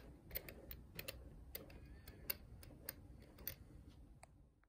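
Faint, irregular light clicks and ticks of hard plastic parts as a Tamiya TT-02 chassis and its driveline are handled and turned by hand, a few clicks a second over a low hum. The sound stops suddenly near the end.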